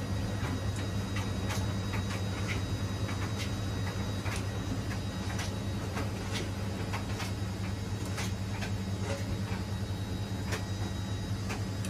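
Washing machine running with a steady low hum, overlaid by irregular sharp clicks and ticks a few times a second.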